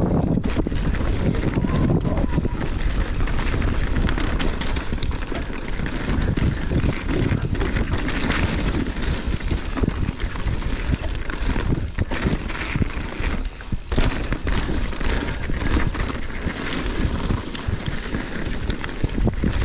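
Wind buffeting the microphone of a mountain bike's camera on a fast descent, over the steady noise of tyres rolling on rocky, gravelly dirt trail, with frequent short knocks and rattles from the bike over the rocks.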